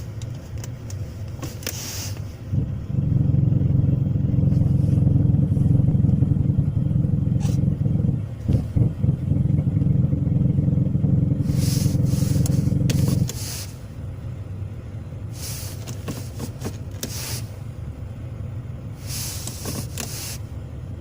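Kia Rio engine running with an automatic transmission, the sound put forward as a knock in the automatic gearbox. It runs louder for about ten seconds from near three seconds in, with a brief uneven break just after eight seconds, then settles back to a quieter level.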